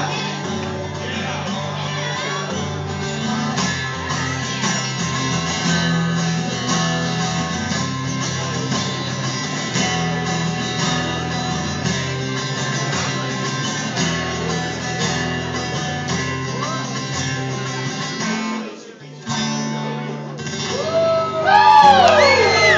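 Solo acoustic guitar playing the instrumental ending of a song, with a short drop in level about nineteen seconds in. Near the end, voices whoop and shout.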